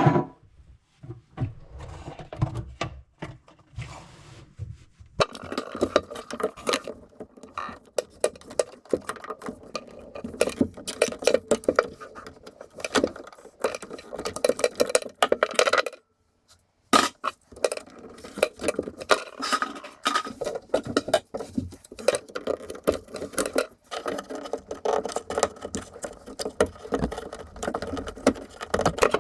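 Hand tools working on the metal valves and pipe under a sink: a few knocks, then a long stretch of rapid metallic clicking, clinking and scraping that pauses briefly a little past halfway.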